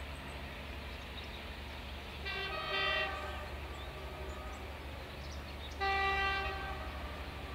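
Two blasts of a diesel locomotive's horn, the first just over two seconds in and the second about three seconds later, each lasting under a second. A steady low rumble continues underneath.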